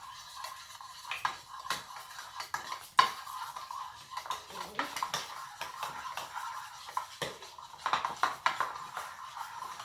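A utensil stirring slime mixture in a bowl, scraping and clicking against the bowl in an irregular run, with one sharper clack about three seconds in.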